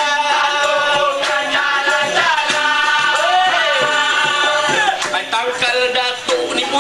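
Dikir barat performance: a lead singer sings a long, wavering, ornamented line through a microphone and PA, over hand drums and shakers.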